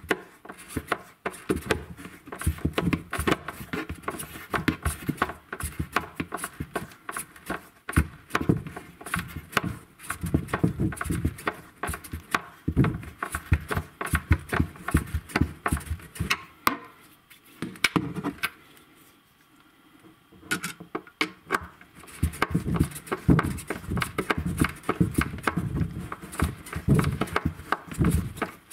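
Hand screwdriver driving a long self-tapping screw through a plastic corner bracket into a cabinet panel: a rapid run of creaks and clicks as the bit and screw turn, with a short pause a little past the middle.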